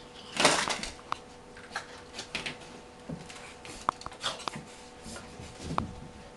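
A dachshund puppy rolling and wriggling on carpet: irregular rubbing and scuffing, the loudest about half a second in, with a few brief squeaks.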